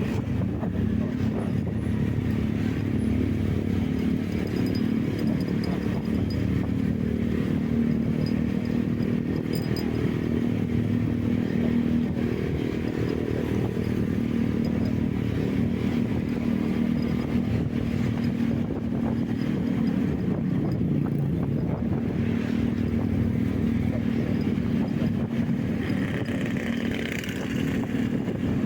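Vehicle engine running steadily on the move at an even speed, with road and wind noise.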